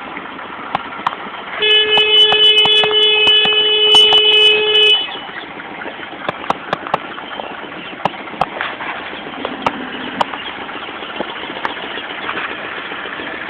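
A vehicle horn sounds one long steady blast of about three seconds, starting about two seconds in. Irregular sharp clicks and knocks run throughout over a steady background noise.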